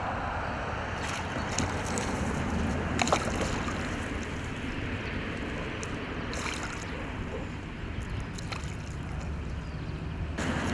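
Hooked pike splashing and sloshing at the surface close to the bank, with a few short sharp splashes over a steady background rush.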